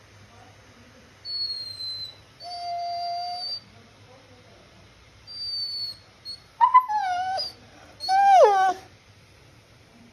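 Beagle whining in a string of high-pitched whines, one held steady, then louder whines about seven and eight seconds in, the last sliding down in pitch: the dog asking to play.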